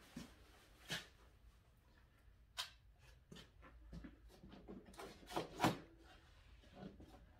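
Hands handling a large cardboard box: a few faint, scattered taps and scuffs, the loudest a pair of knocks a little past halfway.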